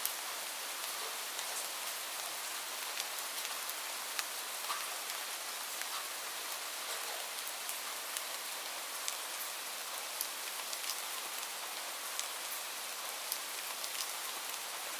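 Light rain falling steadily: an even hiss with scattered sharp ticks of single drops.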